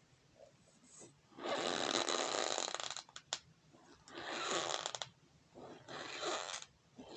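Cornstarch powder squeaking and crunching in long grainy rasps, about four of them, each lasting roughly a second with short quiet gaps between.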